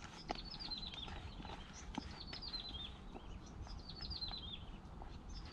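A songbird repeating a short phrase of quick chirps that step down in pitch, about once every two seconds, with a couple of soft taps.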